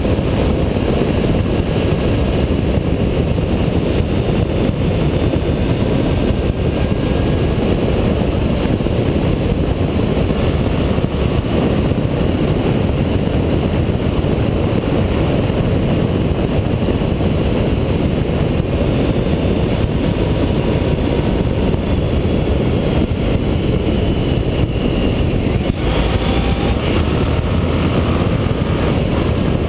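Honda ST1300 motorcycle with its V4 engine cruising at steady highway speed: a constant low drone mixed with wind rushing over the microphone.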